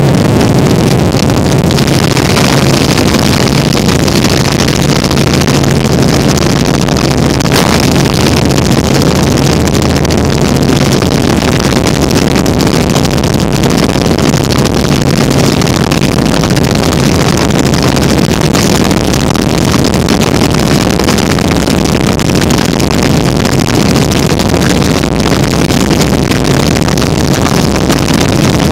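Helicopter in flight, heard from on board: loud, steady engine and rotor noise with a low hum underneath, and some wind on the microphone.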